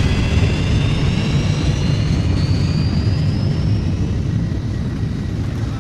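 Jet airliner's engines running hard, a deep rumble with a thin whine that rises steadily in pitch. The noise eases off slightly toward the end as the plane comes out of the rough air.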